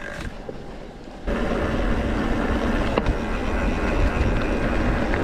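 Wind buffeting the microphone and tyre rumble from a mountain bike riding fast over a dirt trail, jumping suddenly louder about a second in, with one sharp knock partway through.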